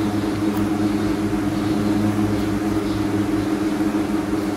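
Steady low hum of a running machine or appliance, one unchanging pitch with overtones.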